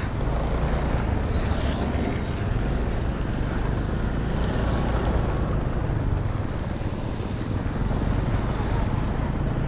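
A motorcycle rides slowly on a wet road, its engine running steadily under a constant hiss of tyres and wind.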